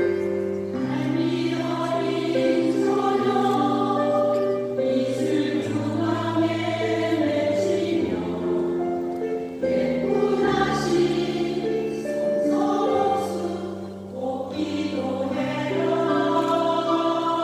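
A seniors' choir singing a Korean song in held chords, the notes changing every second or two.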